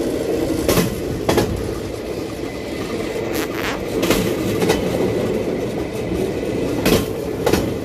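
Pedal-powered rail bike's steel wheels rolling along the track with a steady rumble, clacking sharply over the rail joints about eight times.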